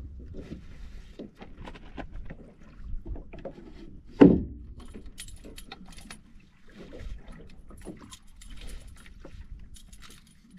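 Gear being handled on the deck of a small skiff: scattered knocks, clicks and light rattles, with one louder thump about four seconds in, over a steady low rumble.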